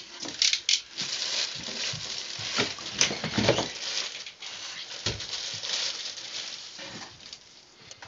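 Plastic packaging bags rustling and crinkling as parts are handled and lifted out of a cardboard box, with a couple of soft knocks of the box and parts a few seconds in.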